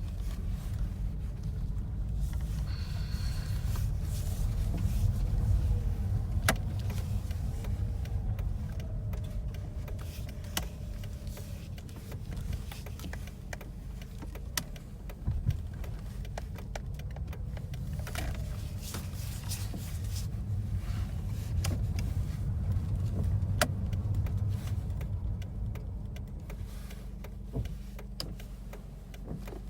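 Mazda RX-7 FD3S's 13B twin-rotor rotary engine running at low revs, with the engine speed rising and falling gently a couple of times. The front rotor's leading and trailing plug leads are swapped, but at these low revs it still sounds normal.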